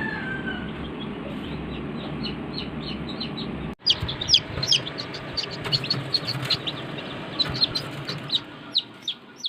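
Chicks peeping: rapid, short, high, downward-sliding peeps, many a second, over a steady background. About four seconds in the sound cuts abruptly and resumes with louder, denser peeping that fades out near the end.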